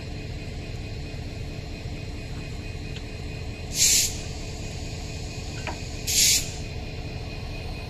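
Two short bursts of compressed-air hiss, a couple of seconds apart, from the air-brake hose connection between two passenger coaches as it is being coupled, over a steady low rumble.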